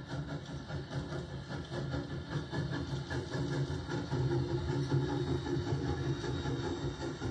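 Huckleberry Railroad narrow-gauge steam locomotive No. 152 running past with its wooden coaches: a steady rumble of the engine and wheels on the rails, loudest about halfway through as the locomotive goes by.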